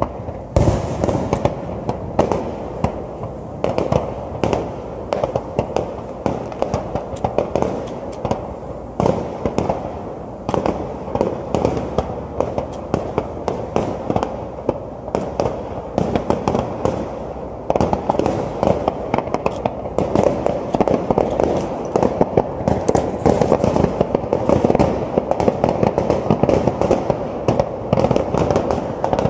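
Aerial firework shells bursting one after another, a continuous barrage of booms and crackles that grows denser and louder about eighteen seconds in.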